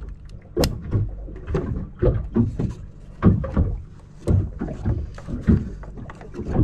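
Handling noise: irregular clicks and knocks as a network cable is plugged into a plastic MoonRay Bluetooth dongle and the dongle is pressed into place, over a low rumble.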